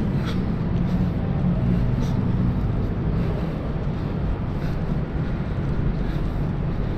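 Steady low hum and rumble of a concrete parking garage, with a few faint ticks.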